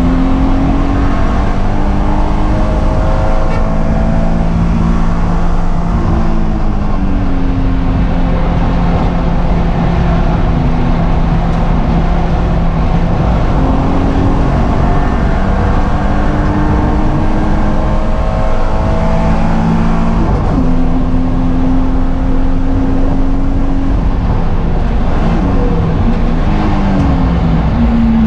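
BMW M3 race car's straight-six engine running hard around the track, heard from inside the cockpit. The pitch climbs with the revs and drops at each upshift, and near the end it steps up several times in quick succession as the car brakes and downshifts. Steady tyre and wind noise runs underneath.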